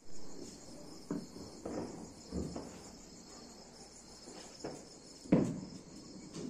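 Crickets chirring in a steady, fast-pulsing high trill, with a few handling knocks over it and one louder thump about five seconds in.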